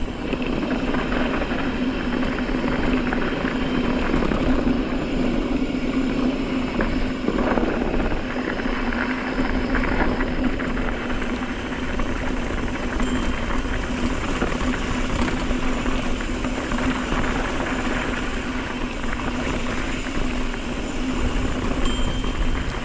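Mountain bike riding fast downhill on a dirt and gravel fire road: steady tyre rumble and rattle over the dirt, with wind buffeting the microphone and a steady low hum underneath.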